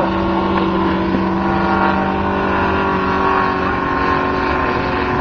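Robart R780 seven-cylinder radial engine of a scale model Fairchild PT-23 running steadily in flight, holding an even pitch.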